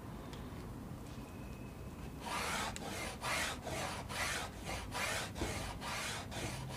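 Tailor's chalk drawn in short back-and-forth strokes along a clear plastic ruler on Ankara fabric, marking a neckline line: about ten scratchy strokes, roughly two a second, beginning about two seconds in.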